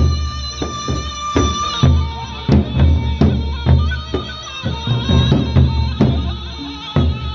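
Sasak gendang beleq ensemble playing: large double-headed barrel drums beaten with sticks in a driving, regular rhythm, with sharp metallic strikes and steady held ringing tones over the drumming.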